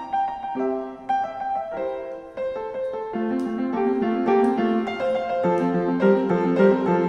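Background piano music: a melody of single notes over chords, growing fuller and a little louder about three seconds in.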